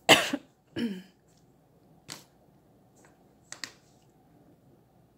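A short vocal sound from a woman in the first second, then a few faint, sharp clicks spaced about a second apart in a quiet room.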